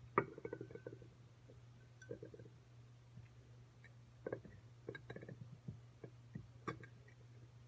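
Faint scattered rustles and light clicks of potted plants and glass lampshades being handled, in small clusters, over a steady low hum.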